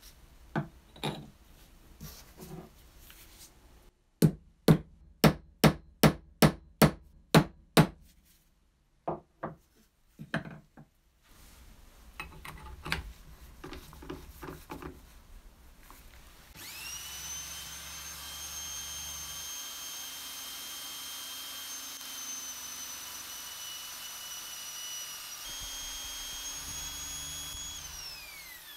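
A hammer striking a steel pin punch on the brass corkscrew about ten times in a row, roughly two to three blows a second, then a few more blows after a short pause. Later an electric drill starts up and runs steadily with a high whine, spinning the brass opener clamped in its chuck. Near the end it steps up in pitch, then winds down.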